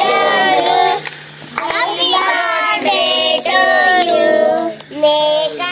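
A group of children singing a birthday song together in long held notes, with two short breaks between phrases.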